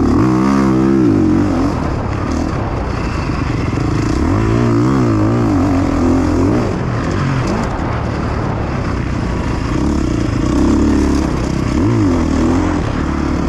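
KTM 350 dirt bike's single-cylinder four-stroke engine being ridden hard, its pitch rising and falling again and again as the throttle is opened and closed and gears change.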